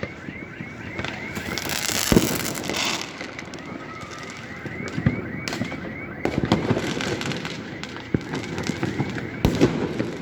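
Fireworks and firecrackers going off: a steady crackle punctuated by sharp bangs, the loudest about two seconds in and several more through the second half.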